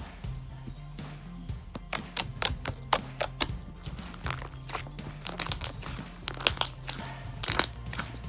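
Thick brown slime squeezed and folded by hand, giving sharp clicks and pops in quick clusters as air pockets in it burst, over background music.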